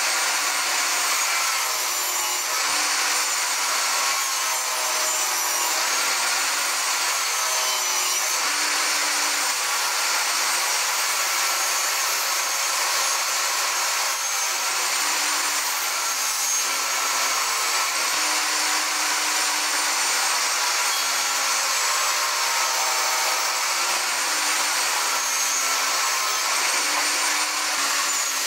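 Jobsite table saw running and ripping long fir strips along the fence: a loud, steady motor whine with the blade cutting through wood, its pitch wavering slightly as the board is fed.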